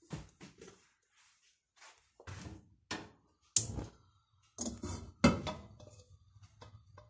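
Stainless steel pot being shifted on the gas stove's metal grate: a series of irregular metal clunks and knocks, some with a short ring, the two loudest about halfway through and a couple of seconds later.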